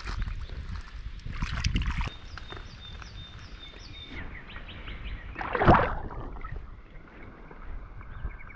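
Water sloshing and splashing around hands holding a large river fish in shallow water, with one loud splash about halfway through as the released fish kicks away. Faint bird chirps in the background.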